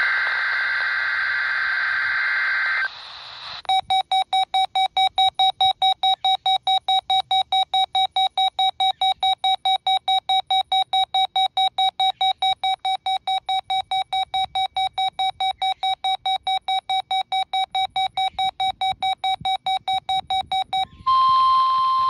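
A NOAA Weather Radio SAME header data burst screeches from a RadioShack 12-254 weather radio's speaker for about three seconds. After a short gap the radio's alert sounds as rapid beeping, about four beeps a second, which stops shortly before the end and gives way to a steady tone.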